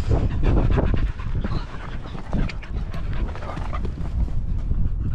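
Dogs panting close by, over a steady low rumble.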